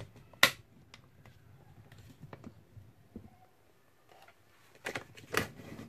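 Stainless-steel pressure cooker lid being unlocked and lifted off, the cooker already depressurized: a sharp metallic click about half a second in, a few faint ticks, then a short clatter of knocks near the end.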